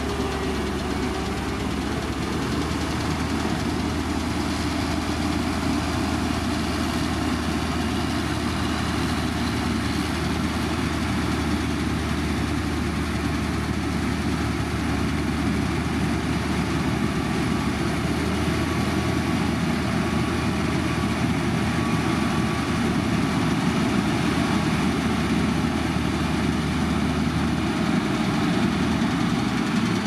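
Diesel engine of heavy road-construction machinery running steadily, with a low hum that stops near the end.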